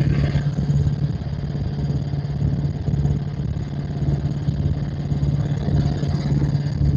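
Helicopter in flight, heard from aboard: the steady drone of the rotor and engine, with a constant low hum and fast, even rotor pulsing.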